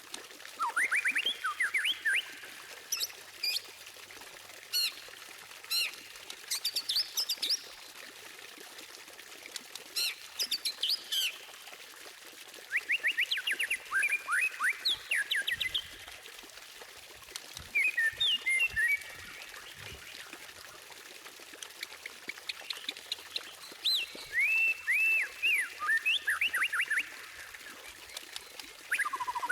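White-rumped shama (murai batu) singing in a string of loud phrases with short pauses: fast rising sweeps, rapid trills and high whistled notes, some phrases repeated quickly in succession.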